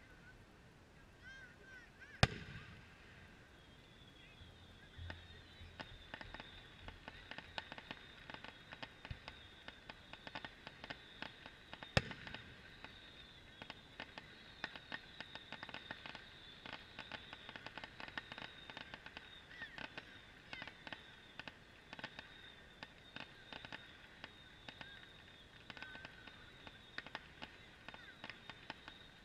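Fireworks: two sharp booms of bursting shells, about two seconds in and about twelve seconds in, over a long run of fast, dense crackling pops from a ground firework.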